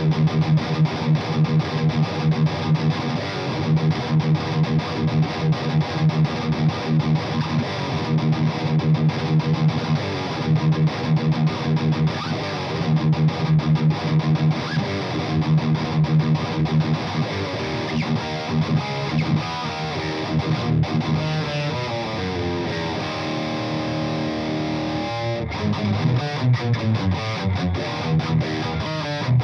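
Distorted electric guitar riffing on an LTD JM-II fitted with Monty's Bethnal Green pickups, tuned down to E flat: fast rhythmic chugging on low notes, with a few held, ringing chords about three quarters of the way through.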